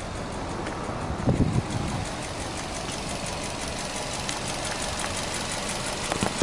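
Subaru Impreza S-GT's 2.0-litre turbocharged boxer engine idling steadily, with a light rapid ticking over the rumble. A brief louder bump comes about a second and a half in.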